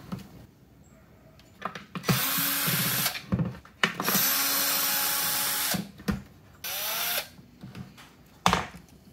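Cordless drill/driver backing out the blower housing's screws: three separate bursts of the motor whirring at steady speed, the longest nearly two seconds, the last one short. A few sharp knocks near the end.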